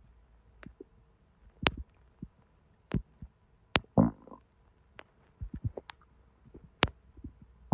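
Abdominal digestion sounds from a belly made active by hot sweetened tea: scattered sharp pops and clicks, with one short gurgle about four seconds in.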